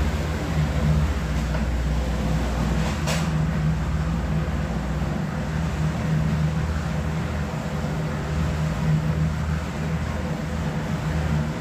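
Concrete mixer's engine running steadily, a low drone, while concrete is being poured. A single sharp click about three seconds in.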